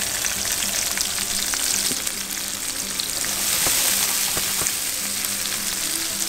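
Sliced onion and bell peppers sizzling in hot oil in a frying pan, just tipped in, a steady hiss with a few scattered crackles.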